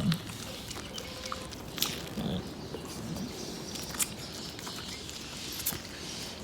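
Goat kid feeding from a bottle: wet sucking and smacking clicks, with a few low grunts near the start and about two seconds in.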